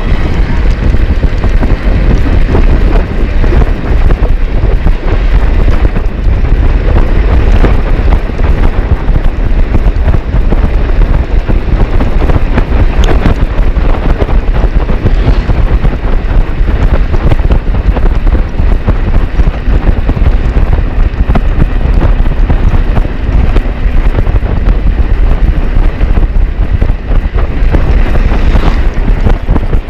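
Wind buffeting the microphone while riding a bicycle: a loud, steady, rumbling rush of noise.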